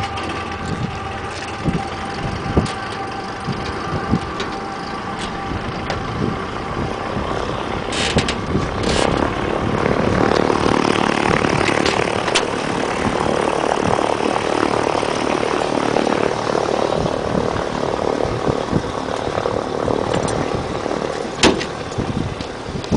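A propeller aircraft's engine running, growing louder about nine seconds in and easing back near the end. A few sharp knocks sound over it.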